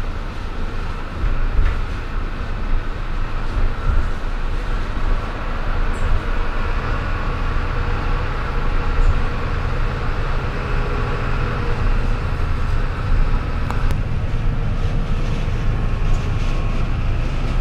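DO 56 double-decker bus under way, heard from inside: steady engine and road rumble with a faint steady whine. Its running gear is no longer the original H6 technology.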